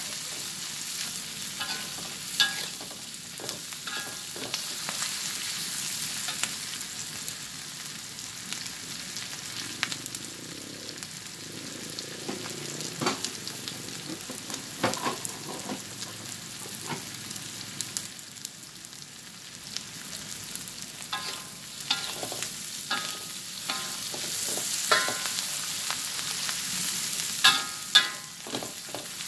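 Green chillies and onion sizzling in an aluminium wok as they are stir-fried, with a metal spatula scraping and knocking against the pan; several of the knocks ring briefly, most of them in the second half.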